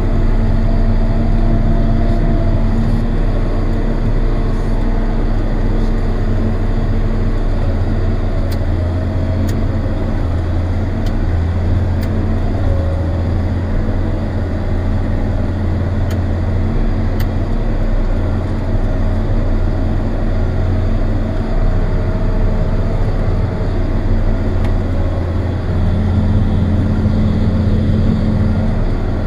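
John Deere 7800 tractor's six-cylinder turbo diesel engine running steadily, heard from inside the cab as a loud, even, low drone.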